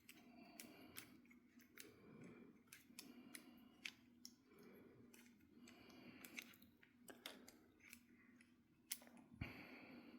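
Faint, irregular metallic clicks and ticks from a Vudoo Gen 1 rifle bolt and its firing pin assembly as they are turned together in a bolt disassembly tool to get the threads to engage.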